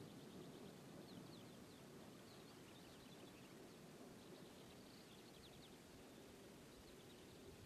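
Near silence: faint outdoor background noise with faint, quick high-pitched chirps in short runs.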